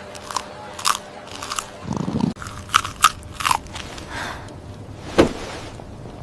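A run of short, sharp crunches and clicks, about a dozen spread unevenly, with a brief low rumble about two seconds in.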